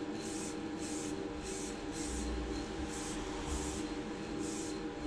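Aerosol can of gloss varnish sprayed in short hissing bursts, about two a second, over the steady hum of a spray booth's extraction fan.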